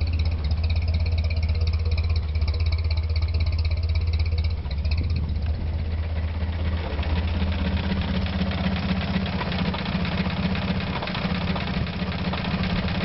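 1928 Chevrolet National's four-cylinder engine idling steadily.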